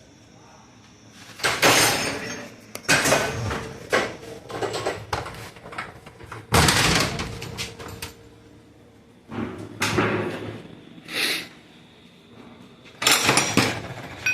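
Metal gearbox parts clanking and scraping as a manual transmission is taken apart by hand: several separate clattering bursts with short pauses between them.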